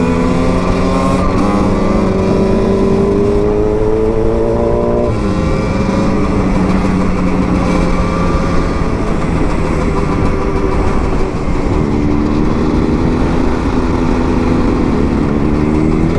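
2007 Husqvarna SM 125 two-stroke single running while riding. Its pitch climbs for about five seconds, drops sharply, then climbs again near the end, with heavy wind rush on the microphone.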